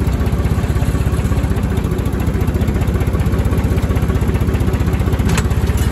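Diesel tractor engine idling steadily, with an even, rapid beat. A light click sounds near the end.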